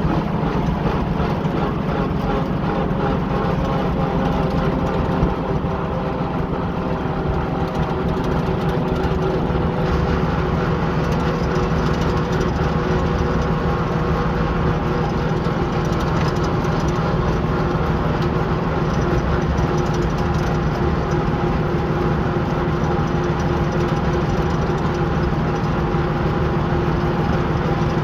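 1938 Graham-Bradley tractor's six-cylinder engine running steadily as the tractor drives along the road, heard from the driver's seat.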